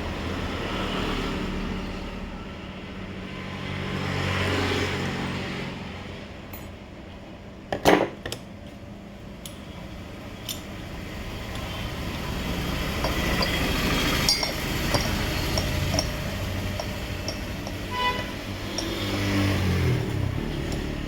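Passing road traffic rising and fading, with light metallic clinks of tools and one sharp metal clank about eight seconds in.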